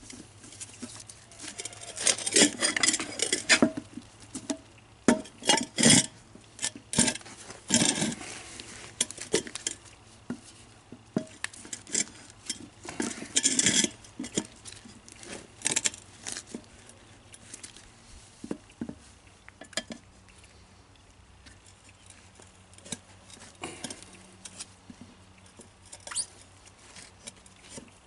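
A big screwdriver prying a tubeless tire's bead over a lawn tractor's metal wheel rim: irregular bursts of metal clinking and scraping, busiest in the first half and sparser later.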